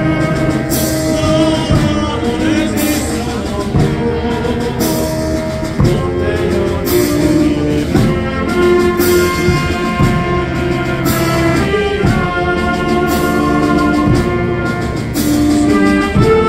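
Military brass band of saxophones, horns and trumpets playing a tune on a steady beat, with bass drum and a cymbal crash about once a second.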